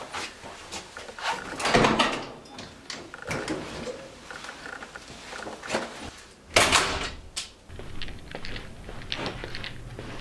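A string of clicks, knocks and rustles from someone moving about and handling things. There are louder noisy bursts about two seconds in and again just past the middle.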